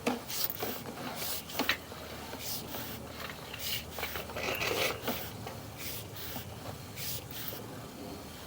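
Irregular rubbing and scraping strokes, several a second, with a couple of sharper clicks near the start: the sewer inspection camera's push cable being handled and worked through the line.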